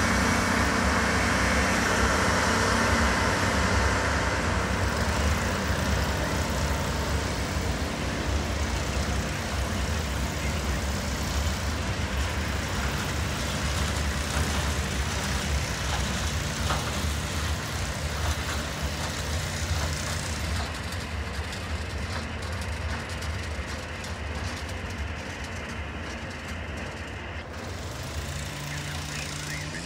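Loram rail undercutter work train and its loaded ballast hopper cars rolling past and away: a steady low diesel engine hum with the rumble of the train, fading gradually as it recedes.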